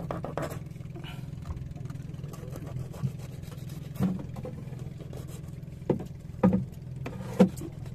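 A motor running steadily with a low hum, with several short knocks in the second half.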